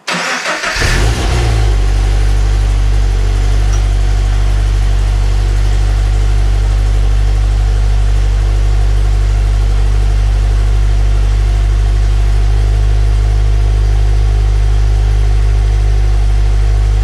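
Subaru BRZ's FA20 flat-four engine starting up on fresh oil after an oil change: it cranks and catches with a brief rev flare in the first second or two, then settles into a steady idle.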